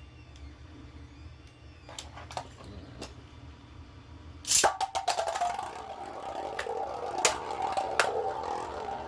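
Beyblade spinning tops launched into a plastic stadium about four and a half seconds in, landing with a loud clatter. They then spin with a steady whirring hum, with sharp clicks as they hit each other. Before the launch there are only a few light clicks of the launchers being readied.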